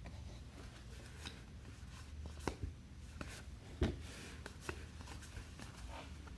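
Faint handling of trading cards: cards sliding and being flipped through, with a few soft taps, over a low steady hum.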